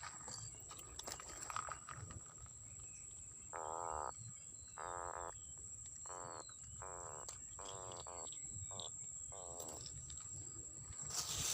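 An animal giving a series of about seven short, raspy, croaking calls spaced unevenly over several seconds. A steady high-pitched whine runs underneath, with a few faint chirps.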